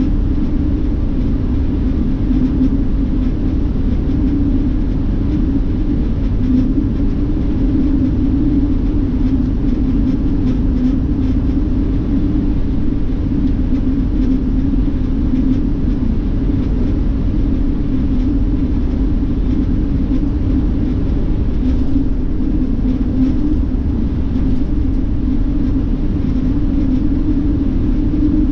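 Steady drone inside the cabin of a highway coach bus cruising at speed: engine and tyre rumble under an even low hum.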